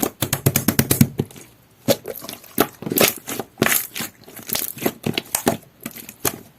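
Jelly-textured sky-blue pearl slime being pressed and squished by hand, making wet clicks and pops: a quick run of them in the first second, then scattered groups of squelches.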